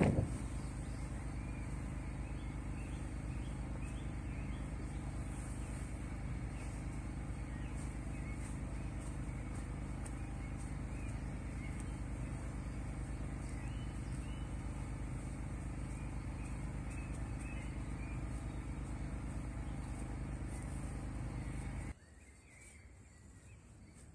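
Lawnmower engine running steadily with an even low hum, faint bird chirps over it. It cuts off abruptly near the end, leaving quiet outdoor background.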